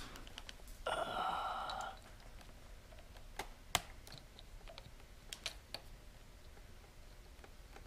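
Small metallic clicks and taps of pliers and cable end at a motorcycle clutch lever as the clutch cable is pulled out, with a brief scraping rasp about a second in.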